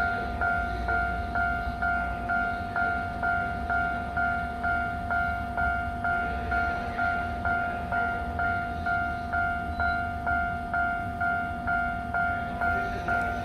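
Japanese railway level-crossing warning bell ringing continuously: an electronic ding repeating in a steady, even rhythm, with a low train rumble underneath.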